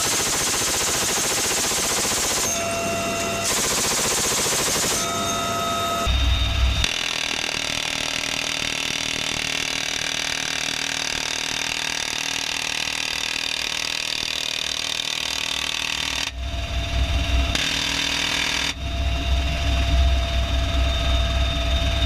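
Helicopter door guns firing over steady rotor and cabin noise. In the first few seconds a .50-calibre heavy machine gun fires several bursts. Later an M134 minigun fires in rapid bursts: a short one about six seconds in, then longer ones for most of the last six seconds.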